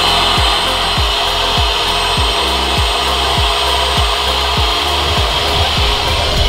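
Electric air pump running steadily, inflating a pink vinyl inflatable through a hose in its valve. Music with a steady thudding beat, a little under two beats a second, plays over it.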